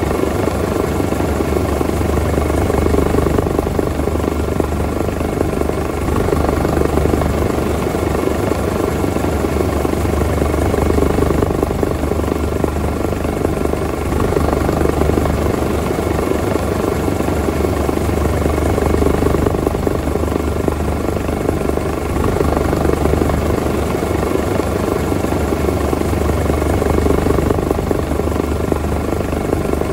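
Helicopter rotor and turbine engine running steadily, heard from inside the cabin: a dense, fast rotor chop under a thin steady whine, swelling and easing gently every few seconds.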